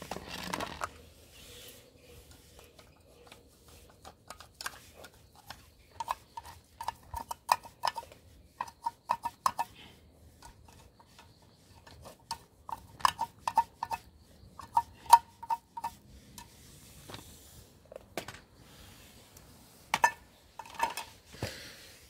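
Stray cats eating dry kibble from bowls: irregular crunching and small clinks of food and bowls, coming in runs of quick clicks.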